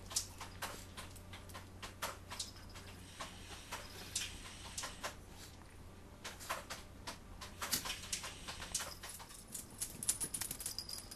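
Small dogs play-wrestling on carpet: a running scatter of irregular light clicks, taps and scuffles from paws, jaws and toys.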